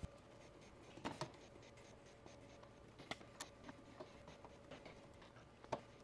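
Faint scattered clicks and scratching of a hand screwdriver turning the outlet's mounting screws into the metal mud ring, over near silence.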